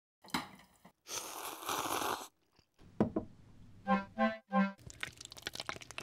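Eating noises from a bowl of ramen, a long noisy slurp and crunching, then a knock and three short pitched notes of a comic sound effect near the middle, followed by crackling.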